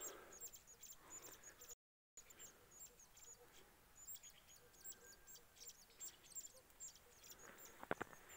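Near silence with faint, rapid, high-pitched bird chirping throughout, and a few sharp clicks near the end.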